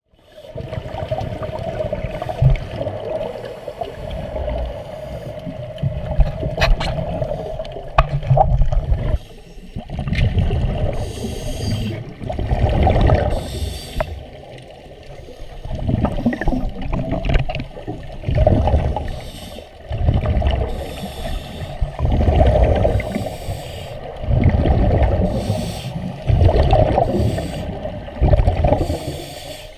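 Water sloshing and bubbling heard through a GoPro's waterproof housing, muffled and low, with loud surges of scuba regulator exhaust bubbles every two to three seconds.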